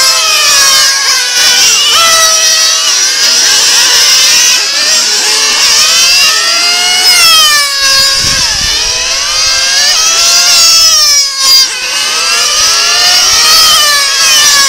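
Several radio-controlled racing cars' small engines running at high revs, overlapping, each pitch rising and falling as the cars accelerate and brake through the corners.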